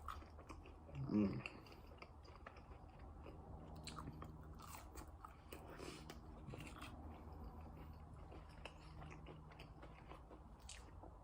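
Close-up chewing and biting into a chicken McNugget, soft and wet with faint crunches, with a short hummed "mm" about a second in.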